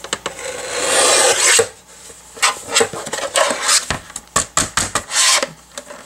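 Plastic paper trimmer handled on a cutting mat: a long rasping scrape in the first second and a half, then a run of sharp clicks and knocks.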